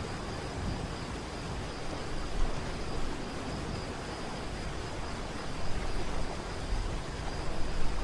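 Waterfall: a steady rush of falling water, a deep rumble with hiss over it, swelling a little in loudness near the end.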